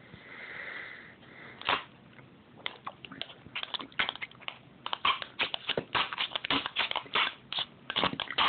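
Mayonnaise being sucked through a plastic funnel held to the mouth, with a spoon working the mayo down inside the funnel. A soft sucking hiss at first, then a quick, irregular run of wet clicks, smacks and spoon scrapes on the plastic.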